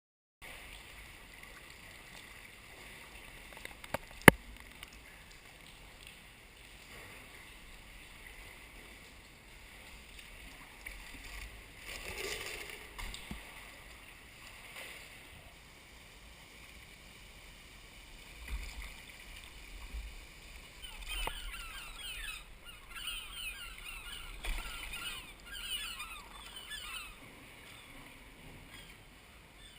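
Water noise around a paddled sea kayak, with one sharp click about four seconds in. In the second half, birds call repeatedly in quick, wavering notes.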